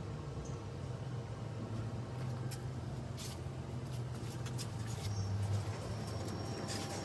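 SK Dry Ice 6000 low fog machine running, its blower pushing fog out through the hose: a steady low hum with a few short crackles.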